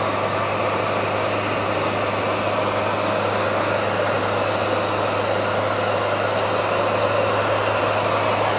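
Steady engine hum with tyre and road noise inside the cab of a GAZelle light truck driving at an even speed.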